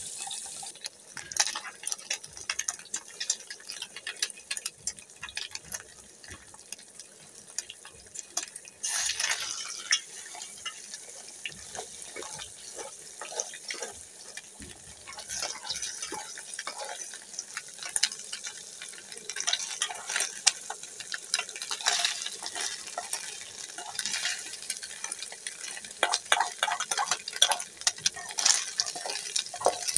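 Metal spoon stirring and scraping a thick mixture in an aluminium pot on a gas burner: repeated scrapes and clinks against the pot over a steady frying sizzle.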